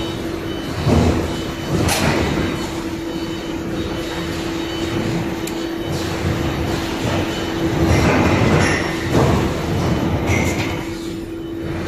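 Plywood paving-line machinery running: a steady hum and rumble with clanks. The loudest knocks come about one and two seconds in, and there is a louder stretch around eight to nine seconds in.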